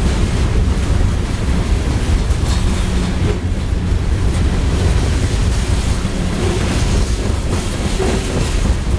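CSX coal train's gondola cars rolling steadily past: a continuous low rumble, with the wheels knocking over rail joints now and then.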